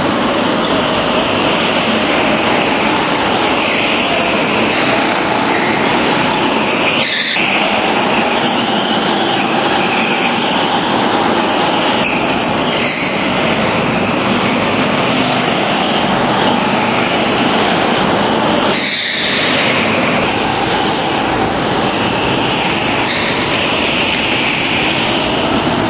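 Several go-kart engines running together, their pitch rising and falling as the karts accelerate and slow around the track. The sound breaks off abruptly a few times and picks up again.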